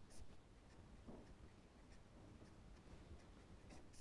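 Faint scratching of a pen writing on paper in short strokes, the clearest just after the start and near the end, over a quiet room hum.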